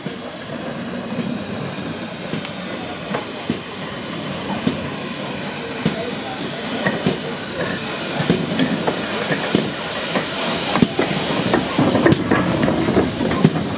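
Great Western steam tank locomotive No. 5526 and its coaches drawing into the station, growing steadily louder as they come alongside, with the wheels clicking and knocking over the rail joints more and more often towards the end.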